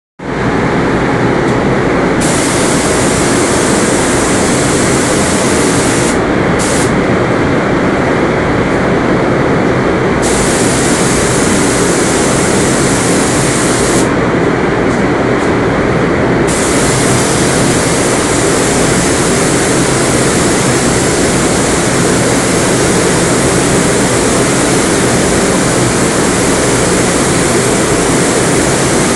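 Gravity-feed paint spray gun spraying, a loud steady hiss of compressed air. The higher part of the hiss drops away three times for a second or two, near the start, from about six to ten seconds, and from about fourteen to sixteen seconds, while a lower rush of air carries on underneath.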